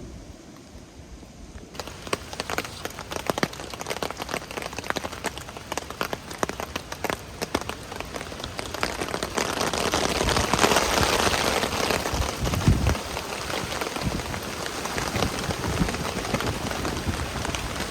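Heavy rain, many close drops tapping on a surface. It starts abruptly about two seconds in and is heaviest in the middle.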